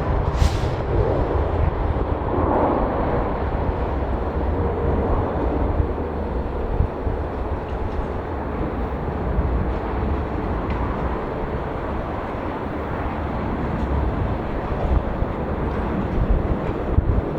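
Steady low rumble of jet airliner engines, with a brief sharp hiss just after the start.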